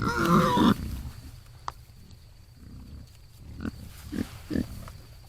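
Feral hogs: a loud squeal right at the start, then a few short grunts about three and a half to four and a half seconds in, with a single sharp click in between.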